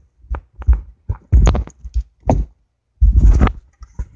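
Close handling noise from working a bundle of car wiring by hand: a run of knocks and thumps with two longer rustling scrapes, one about a second and a half in and one about three seconds in.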